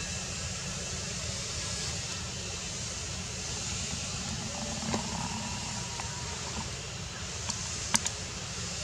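Steady outdoor background noise, a low rumble under a hiss, with a few sharp clicks in the second half, the loudest about eight seconds in.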